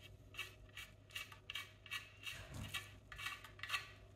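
Light metallic clicks and clinks from handling the Alvey reel's metal backplate and frame while a nut is worked off it. They come irregularly, about three a second.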